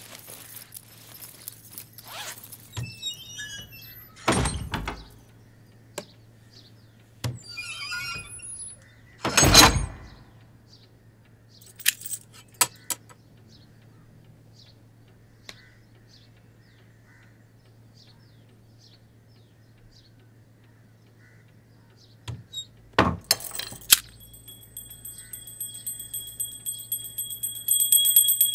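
Rustling, clicks and a few heavy thumps as a school backpack is handled. Then, about four seconds from the end, a small brass puja hand bell starts ringing rapidly and steadily.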